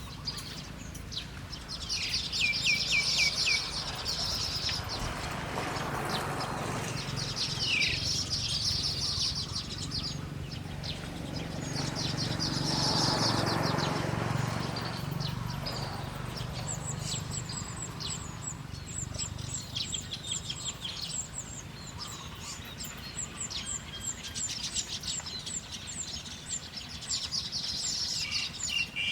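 Small songbirds chirping and twittering in short bursts of quick trills, several times over. A fast, high, fine ticking, like an insect, runs through the second half.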